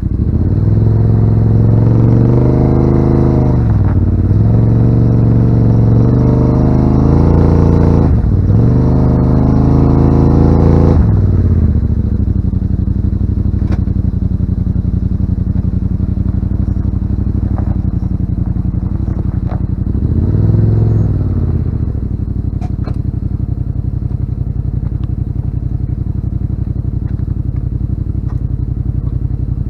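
Yamaha RMAX 1000 side-by-side's twin-cylinder engine revving up and down under load for about the first eleven seconds, then running steadily at a lower speed with one brief rev about twenty seconds in. Light clicks and knocks are scattered through the quieter part.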